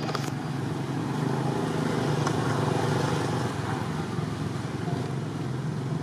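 Steady low rumble of motor traffic, a little louder in the middle, with a couple of faint clicks at the start.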